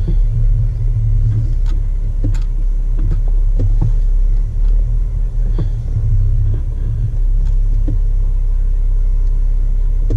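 Jeep Wrangler JK driving, heard from inside the cab: a steady low road-and-engine rumble with occasional faint ticks and rattles.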